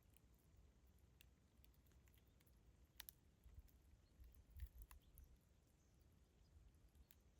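Campfire burning, with faint scattered crackles and pops of the wood over a low rumble; the pops come thickest about halfway through.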